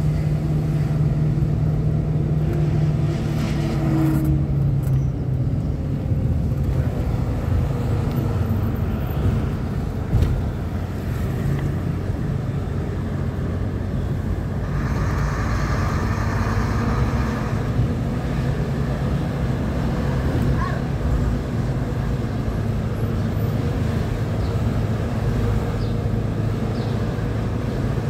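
Car engine and road noise from a moving car: a steady low hum whose pitch drifts slightly as the engine speed changes.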